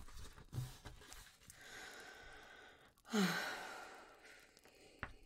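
A woman draws a long breath in and then lets it out as a loud sigh about three seconds in, with a brief voiced tone that falls in pitch: a nervous breath taken before reading a love letter aloud.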